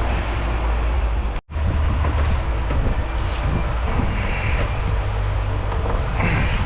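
Steady low background rumble, broken by a brief gap about one and a half seconds in. A few short, faint clicks and scrapes of hand-tool work come through near the middle and end.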